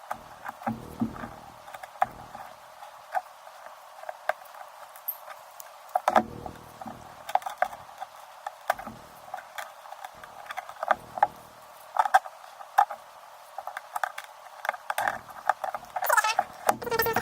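Cracked iPad mini digitizer glass being scraped and picked off the frame with a metal tool: irregular small clicks and crackles with a few soft knocks, denser scraping near the end.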